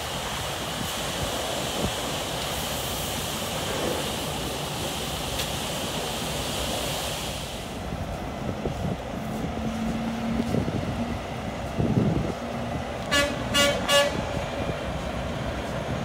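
Steady hiss of water spraying in a truck wash bay, which cuts off about seven seconds in. Then a bobtail semi tractor rolls by with its engine running and gives three short horn toots, about 13 seconds in, in answer to an arm-pump signal.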